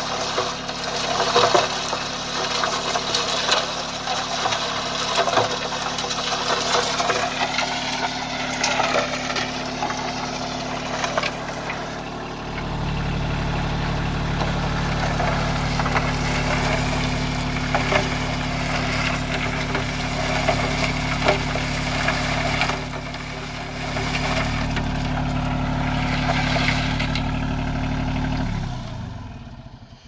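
Tractor engine running, driving the hydraulic concrete mixer, as rocks and dirt clatter around inside the turning steel drum. The engine gets louder about twelve seconds in, then winds down and stops just before the end.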